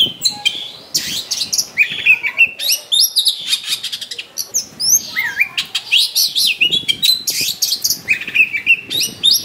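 Oriental magpie-robin singing a loud, continuous, rapid song of varied whistles, slurred notes and quick harsh chattering phrases, with a short lull in the middle. It is the persistent, fighting-mood song full of mimicked 'isian' phrases that keepers use to provoke other magpie-robins into singing.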